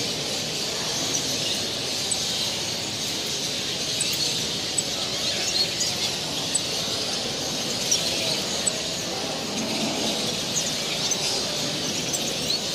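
Many caged canaries and finches chirping and singing at once: a dense, steady high twittering full of short chirps, over a low background noise.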